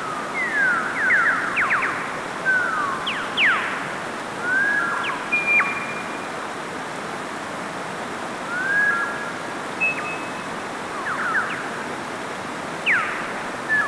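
A mountain stream rushing steadily over rocks, with a bird singing on top in short whistled phrases: quick falling and rising sweeps and brief held notes, a phrase every second or two.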